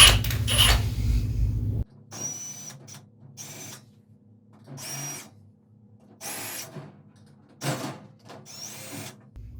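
Screw gun driving out the Phillips screws that hold an air cleaner's inlet grill, in about six short whirring bursts with a high whine. A loud low hum with a couple of clicks stops abruptly about two seconds in.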